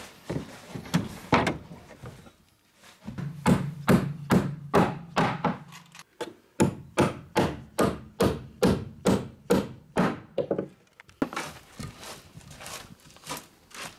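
Hammer striking wooden boards in a steady run of sharp blows, about two a second, for several seconds. Near the end the blows give way to a softer scraping as debris is swept off the wooden floor.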